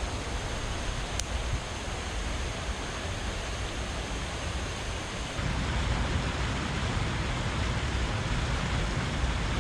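Steady rush of high, fast-running floodwater, with wind buffeting the microphone; the rush and rumble grow louder about halfway through.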